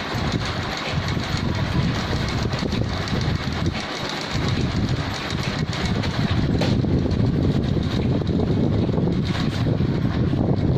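Sewing machine running steadily with a rattling clatter, easing off briefly about four seconds in, then running harder.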